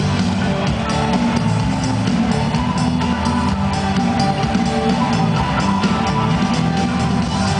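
Live band music played through a concert sound system, with drum kit and guitar, recorded from within the audience.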